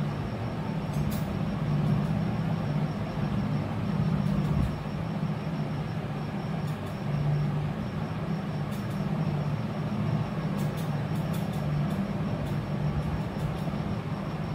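Steady low machine-like hum over a constant rushing background noise, with a few faint scattered ticks.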